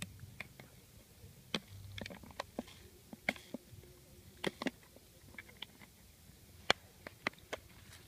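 Hands handling gear on dry grass and twigs while setting a spring net bird trap: irregular small clicks and crackles, with one sharper click near the end.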